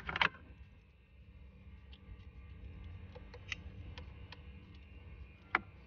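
Plastic wiring-harness connectors and cables of a car stereo being handled: scattered light clicks and ticks, with a sharper click near the end.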